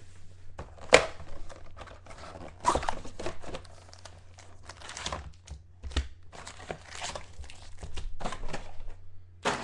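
Trading card pack wrappers being torn open and crinkled, with cards shuffled by hand: irregular crackling and rustling, with one sharp snap about a second in.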